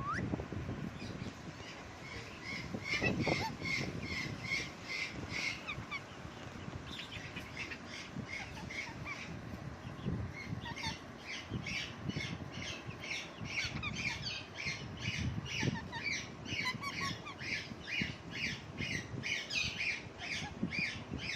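Parrot calling in long runs of short, high-pitched squawks, about three a second, with a brief pause around six seconds in.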